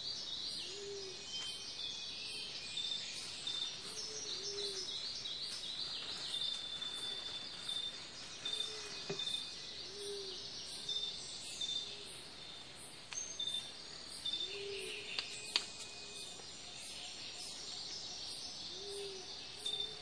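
Rainforest ambience: a steady high chorus of insects and birds chirping and trilling, with a low call that rises and falls, repeated every few seconds.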